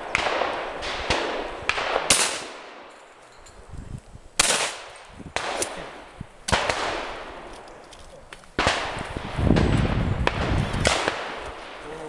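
Shotgun shots on a clay shooting ground: a string of sharp reports about every two seconds, each trailing off, with fainter shots from farther away in between.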